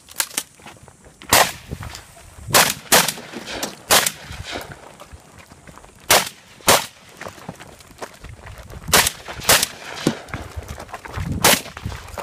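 Gunshots during a 3-gun competition stage: about nine loud shots at an irregular pace, several fired in quick pairs about half a second apart, each with a short ringing echo.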